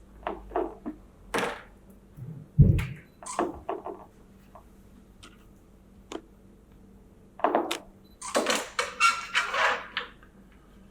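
Parts of a slushy machine being handled and fitted: a series of knocks and clunks, a heavy thump about two and a half seconds in, and a stretch of rattling and scraping near the end.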